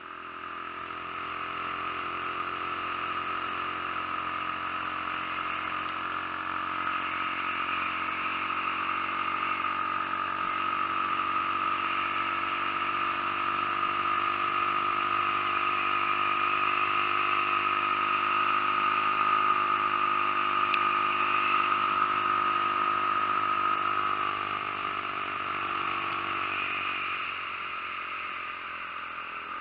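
Rebuilt Skyteam Dax 50cc moped's small single-cylinder four-stroke engine running steadily at a fairly constant speed, growing a little louder over the first several seconds and easing slightly near the end.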